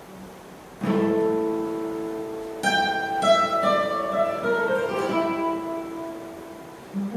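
Solo classical guitar: a chord plucked about a second in and left to ring, then a brighter chord and a quick falling run of single notes that rings on, with a new chord starting near the end.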